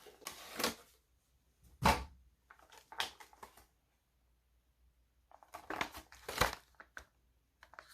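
Action-figure packaging being opened by hand: plastic and cardboard crinkling and tearing in several short bursts, with a pause of about a second midway.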